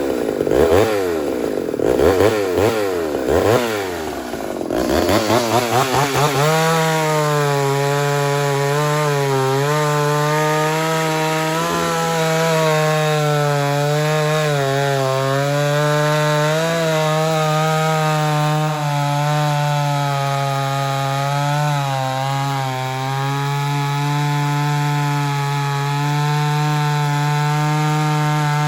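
Ported Homelite Super XL-130 two-stroke chainsaw revved up and down several times. About six seconds in it settles into a steady, slightly wavering run as it cuts through wood.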